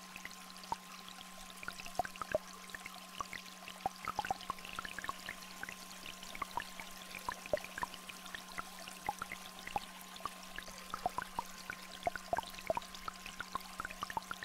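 A small stream flowing, with many scattered water-drop plinks, under two steady electronic tones, one low and one higher.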